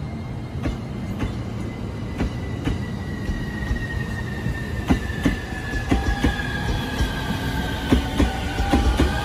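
An electric commuter train pulls away and speeds up. Its wheels click over the rail joints faster and faster, and an electric motor whine slides down in pitch and then starts rising near the end.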